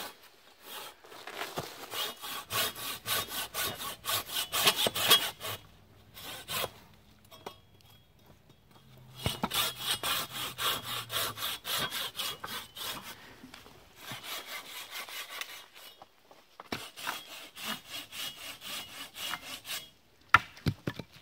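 Hand saw cutting through a bundle of three small branches at once, in quick back-and-forth rasping strokes, in four bouts with short pauses between. A few sharp knocks of wood come near the end.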